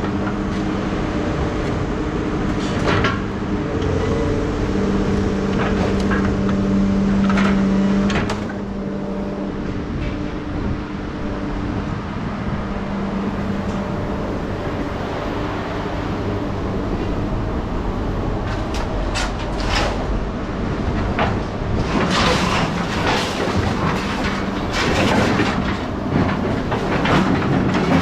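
An engine drone with a steady hum, mixed with scattered metallic knocks and clanks. The knocks grow busier and louder over the last several seconds.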